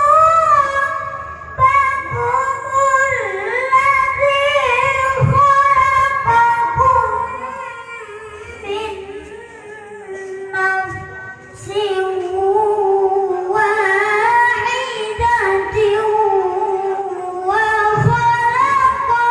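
A child's high voice reciting the Qur'an in the melodic qiroah style through a PA sound system, drawing out long, ornamented notes that waver and bend. One phrase falls away and goes quieter around the middle, and a new phrase starts a little later.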